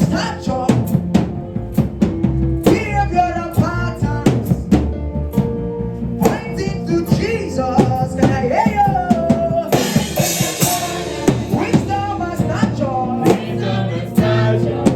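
Music: a worship song with voices singing over a drum kit's kick and snare. A cymbal wash rings out about two-thirds of the way through.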